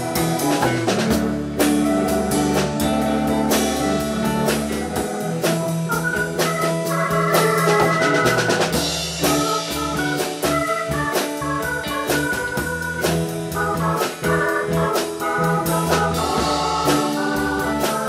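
Instrumental background music: a drum kit keeping a steady beat under held organ chords.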